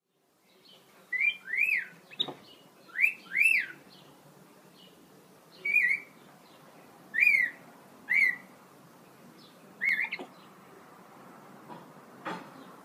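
Capuchin monkey giving short whistled calls, each note rising then falling in pitch, about ten in all, several in quick pairs, with gaps of a second or two between. Two faint knocks, one about two seconds in and one near the end.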